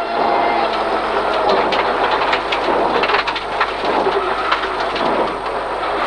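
Rally car heard from inside the stripped cabin on a gravel stage: a dense crackling rush of gravel and stones spraying against the underbody and wheel arches, over the running engine.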